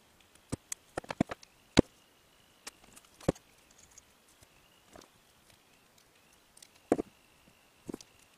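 Hand crimping tool clamping a metal pin contact onto a cable end: a quick run of sharp metallic clicks, then a few more scattered clicks and knocks as the tool and the crimped pin are handled on the tabletop.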